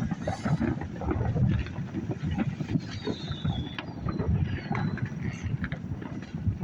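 Fireworks going off at a distance, many pops and bangs in quick, irregular succession, with wind rumbling on the microphone.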